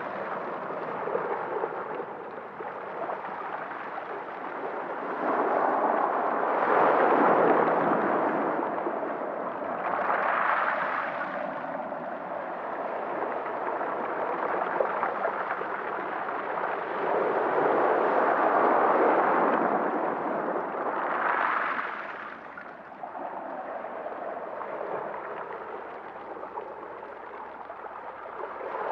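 A rushing noise with no clear pitch that swells and fades in slow surges every few seconds.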